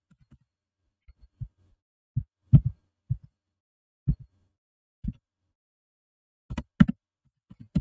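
Scattered, irregular soft taps of computer keystrokes and mouse clicks, a dozen or so with quiet gaps between them.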